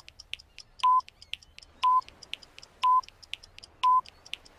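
Countdown timer sound effect: a short electronic beep once a second, five in all, with faint quick ticking between the beeps.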